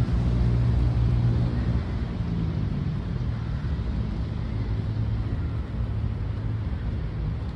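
Steady low rumble of city road traffic, with a low engine hum that is strongest in the first couple of seconds.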